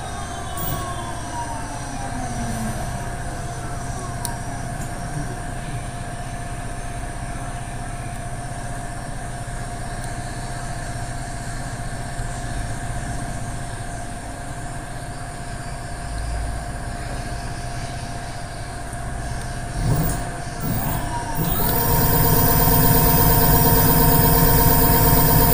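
Electric bicycle hub motor whining as it runs on a 5 kΩ potentiometer wired in place of a broken throttle. The whine falls in pitch over the first few seconds as the motor slows, and a steady hum holds through the middle. About three-quarters of the way in, the motor runs up again, louder and steady.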